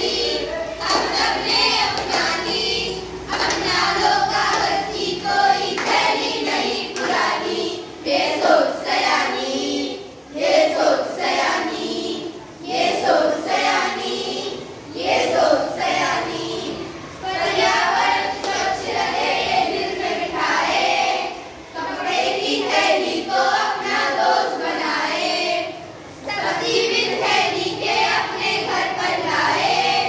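A group of schoolchildren singing together in chorus, in phrases with short breaks between them.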